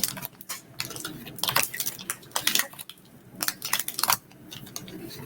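A Pokémon trading card booster pack being opened by hand: the foil wrapper crinkling and tearing, with cards handled. It is an uneven run of sharp crackles and clicks.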